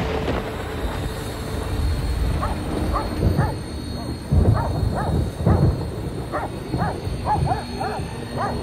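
A dog barking repeatedly in short barks, starting a couple of seconds in and coming quicker near the end, over a steady low rumble.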